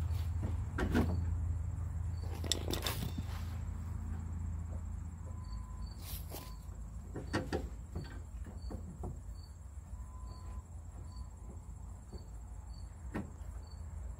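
Steel flat bar and C-clamp scraping and clicking on a Chevy Silverado's parking brake cable and frame as the setup is pulled back to compress the automatic parking brake cable tensioner's spring, with scattered clicks and knocks. Crickets chirp steadily in the background over a low hum that weakens after about five seconds.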